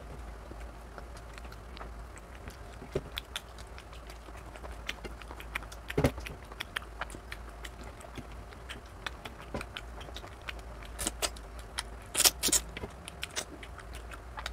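Eating sounds of rice and mutton curry eaten by hand off a steel plate: scattered wet clicks and smacks of fingers squeezing and mixing the rice and gravy, with chewing. A loud click comes about six seconds in and a cluster of louder ones near the end, over a low steady hum.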